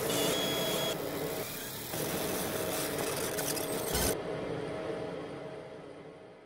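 Logo sting sound design: crackling static with a steady electric hum, ending in a deep impact about four seconds in. After the impact the static cuts off and the hum fades out.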